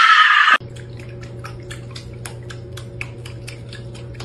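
A person's loud shout, cut off about half a second in. Then a steady low hum under light, irregular drips and clicks of water as a hairless Sphynx cat paws at bathwater.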